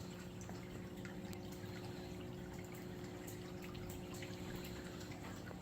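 Faint, steady trickle and drip of running water, over a low steady hum.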